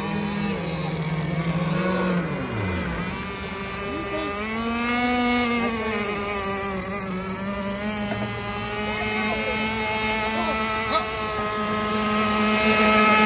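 Gas-powered RC boats' small two-stroke engines running on the water, more than one at once. Their pitch rises and falls as the throttle changes, and one drops sharply in pitch about two seconds in.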